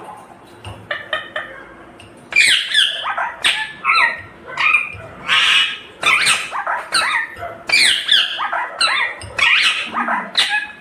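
Indian ringneck parrot calling: a few soft chirps, then about two seconds in a rapid run of loud, harsh squawks, several a second.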